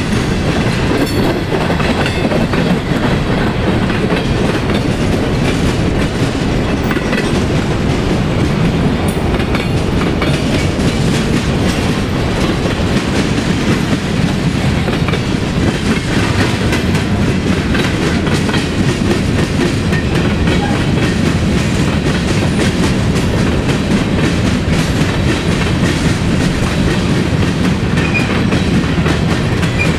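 Freight cars of a BNSF manifest train rolling past: a steady, loud rumble of steel wheels on rail, with frequent clicks as the wheel sets pass.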